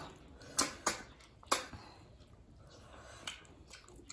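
Close-miked eating sounds: a few short, sharp mouth smacks and clicks, the loudest a pair under a second in and another about one and a half seconds in.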